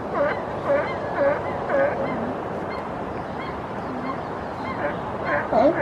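California sea lions barking: short honking barks, four in quick succession about half a second apart, then a pause, a lower call, and a faster run of barks near the end.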